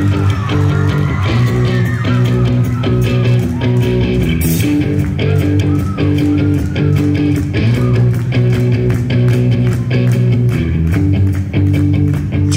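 Live rock band playing in a concert hall: electric guitar and bass over a steady drumbeat.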